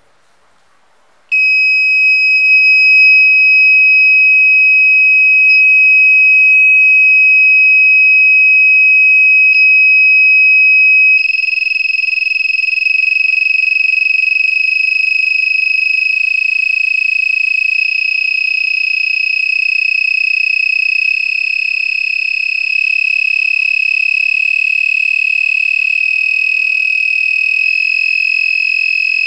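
Buzzer on an Arduino (ATmega328) function generator, driven by its PWM output: a loud, steady high-pitched beep starts about a second in. About eleven seconds in it turns into a rougher buzz at the same pitch, changing slightly in level in small steps as the PWM frequency is stepped up through the tens of hertz.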